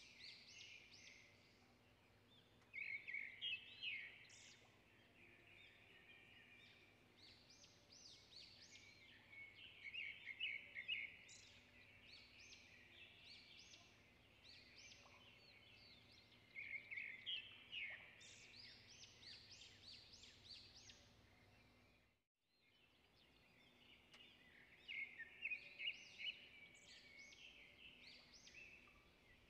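Faint, high-pitched chirping of small birds, coming in clusters of quick notes every few seconds, with a brief break about three-quarters of the way through.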